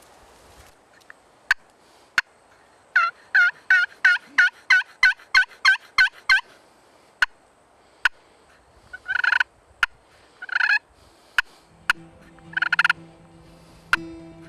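Friction turkey pot call (the Bama Hammer) worked with a wooden striker, imitating a hen turkey: a quick run of about a dozen two-note yelps, then three longer, harsher notes spaced a couple of seconds apart, with scattered sharp clicks between.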